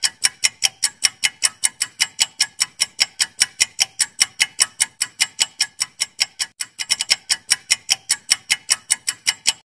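Ticking-clock sound effect for a quiz countdown timer: an even run of sharp ticks at about five a second, stopping near the end.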